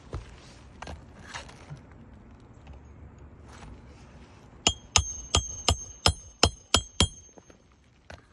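Hammer driving a roofing nail into a shingle: a quick run of about eight ringing strikes, close to three a second, starting a little past halfway, with a few faint knocks before it.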